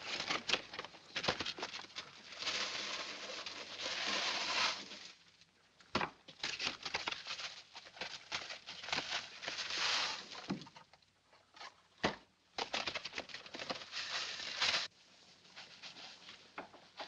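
Paper tea packets being torn open and loose dry tea leaves poured out onto a counter: a dry rustling patter in spells of a second or two, with sharp paper crackles between.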